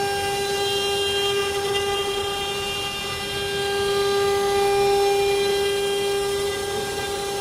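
CNC router spindle running with a steady high whine while machining wood.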